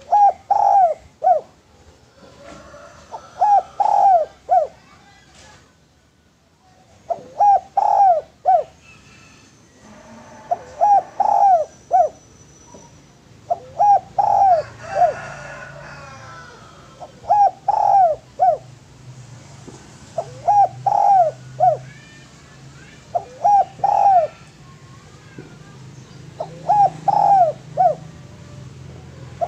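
Spotted dove (tekukur) cooing, a phrase of three or four short coos repeated about every three to four seconds, about nine times. Fainter chirps from other small birds sound in the background.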